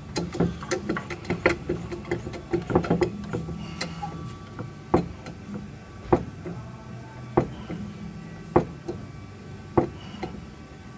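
Sharp metallic knocks and clicks, a quick flurry in the first few seconds and then single knocks about one every second and a quarter, over a steady low hum.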